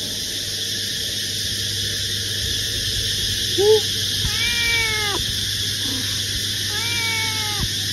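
Orange-and-white cat meowing three times: a short call about three and a half seconds in, then two longer meows, each dropping in pitch at the end. It is a hungry cat asking for food. A steady hiss runs underneath.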